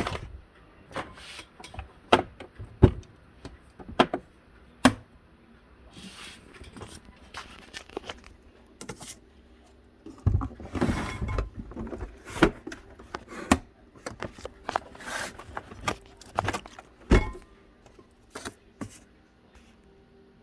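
Cricut Maker cutting machine running, making irregular clicks and knocks, with a denser stretch of grinding about ten seconds in, a grinding noise from clamp B.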